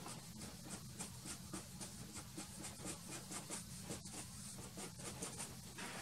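Soft pastel stick scratching over gritty primer-coated matte board in quick short strokes, several a second, as dark marks are dabbed into the painting. A faint steady low hum runs underneath.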